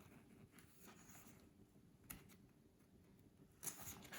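Near silence, then about three and a half seconds in a faint rustle of paper as a picture-book page is handled and turned.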